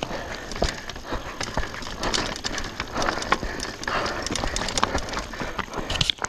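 Downhill mountain bike rolling over a loose, rocky scree trail: tyres crunching on gravel and stones, with many quick rattling knocks from the bike over the rough ground.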